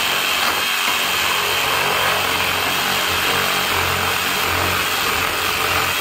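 Cordless DeWalt reciprocating saw running steadily, its blade cutting through pallet wood next to a nail.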